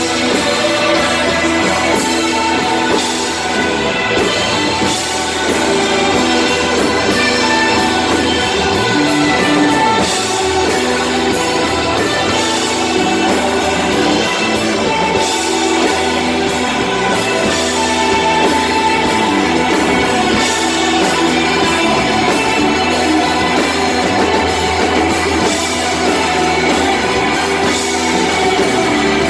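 Live rock band jamming: electric guitar, bass guitar and drum kit playing loud and continuous, with steady drum and cymbal hits.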